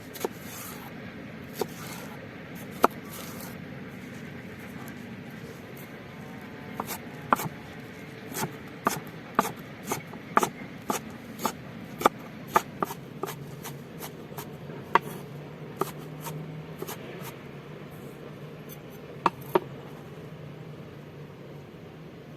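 Knife chopping on a cutting board in irregular sharp strikes, most frequent in the middle stretch, over a steady low background hum.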